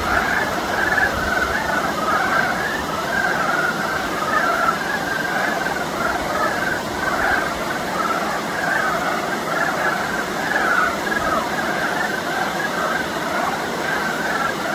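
A dense chorus of many frogs calling together at a spawning pool, short overlapping calls running on without a break.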